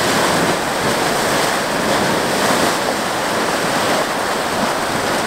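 Steady, loud rushing noise from a Yellowstone hydrothermal feature.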